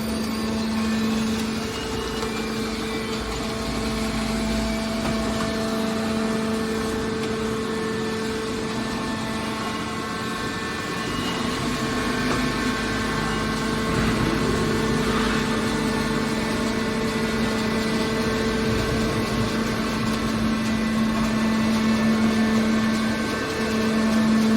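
Hydraulic scrap metal baler running, a steady machine hum from its motor and hydraulic pump.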